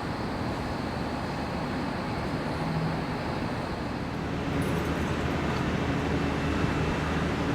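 Steady background rumble with a faint low hum, growing slightly louder about halfway through.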